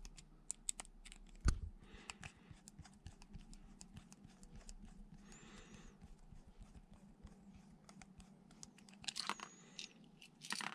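Faint clicking and ticking of a screwdriver turning the small cord-grip screws on a plastic 13A plug top, with plastic handling noises. A single louder knock comes about a second and a half in, and a quick run of clicks comes near the end as the loosened screws are worked out.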